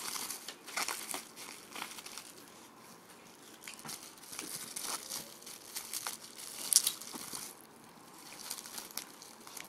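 Plastic packaging crinkling and rustling in irregular handfuls as a stack of sports cards in sleeves and bags is unpacked and handled.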